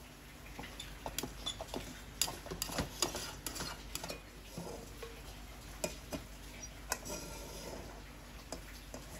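Irregular light taps and clinks of kitchen utensils and dishes being handled, a sharp click every second or so.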